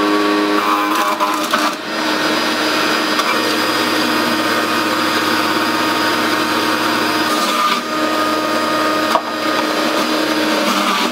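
Nutri-Tech centrifugal juicer running, its motor humming steadily under a rough grinding as carrots are pushed down the chute onto the spinning blade. The sound eases briefly a few times as the load changes.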